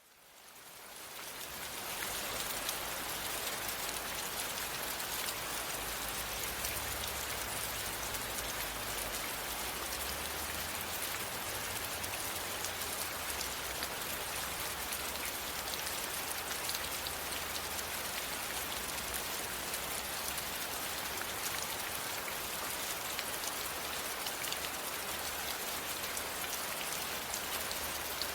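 Steady rain falling, with individual drops ticking through a dense even hiss. It fades in from silence over the first couple of seconds.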